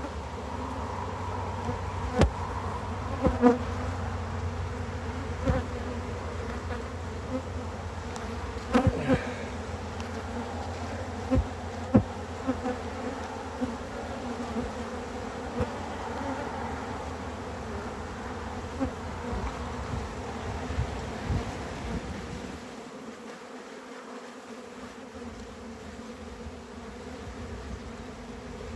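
A honeybee colony buzzing steadily around the opened hive, with about a dozen short sharp clicks and knocks scattered through it.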